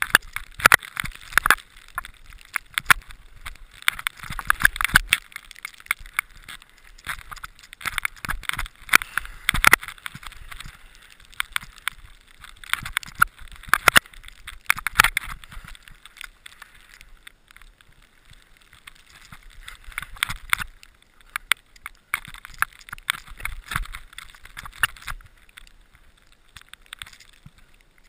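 Skis scraping and hissing over snow on a steep descent, heard from a helmet-mounted GoPro, with many sharp, irregular crackles and knocks; it grows quieter near the end.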